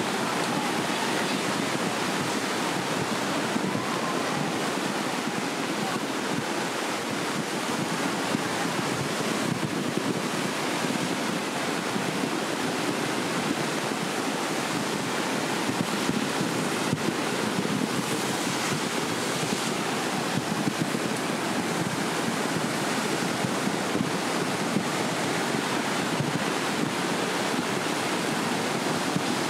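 Kali Gandaki river in flood: a fast, muddy torrent rushing with a dense, steady, unbroken noise of churning water.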